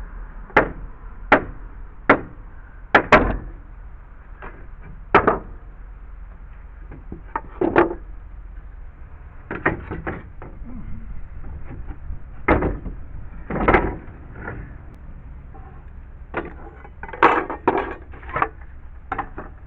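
A string of irregular knocks and clunks on wood, about twenty, some in quick pairs or small clusters, as boards and tools are handled and struck during deck repair work.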